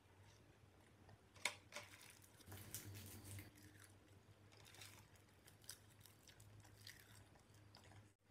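Faint close-up chewing and eating sounds from a mouthful of spicy instant noodles, with a sharp click about a second and a half in and scattered smaller clicks. A low hum sits underneath.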